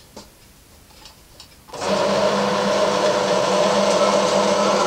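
A pillar drill switches on abruptly about two seconds in and runs steadily, its twist bit boring a blind tapping hole into a grey cast iron block.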